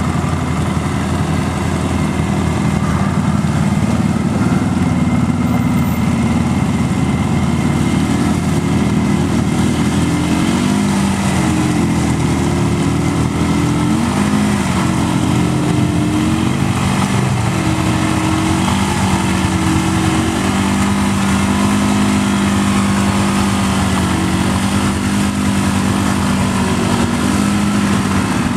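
ATV engine running, its pitch holding steady at first and then rising and falling with the throttle from about ten seconds in.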